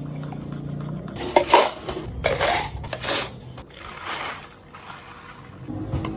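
Ice cubes dropped into plastic cups in about three loud clattering bursts. Then iced tea is poured from a plastic jug over the ice with a softer hissing crackle.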